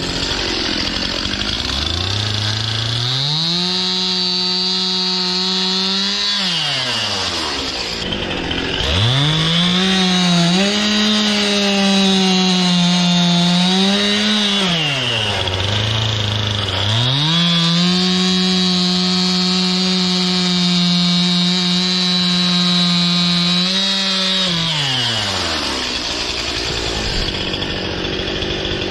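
Stihl two-stroke chainsaw making three cuts through sugar maple firewood. Each time it revs up from idle to full speed, holds there while cutting, then drops back to idle. During the middle cut the engine speed dips and wavers under the load of the wood.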